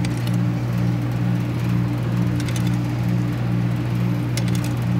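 A loud, steady mechanical hum from an unseen running machine, its tone wavering between two pitches in a regular pattern a few times a second. Over it come a few faint metallic clicks as an adjustable wrench turns the old outdoor water valve counterclockwise off its threaded pipe.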